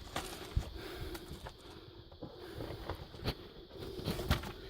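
Scattered scuffs and sharp knocks of people moving over loose rock, with a faint low rumble between them.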